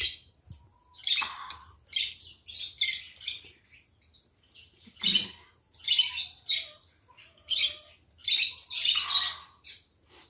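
A person slurping curry laksa broth in a series of short, hissy sips, about a dozen in quick succession with brief pauses between.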